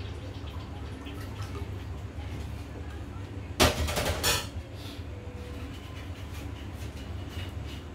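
A brief, loud clatter of kitchen utensils about three and a half seconds in, over a low steady rumble from the pot of chicken soup on the gas stove burner.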